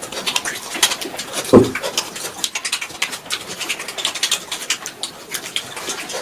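Close-miked chewing and wet lip-smacking of someone eating a large fish head by hand: rapid, irregular mouth clicks, with one short, louder low sound about one and a half seconds in.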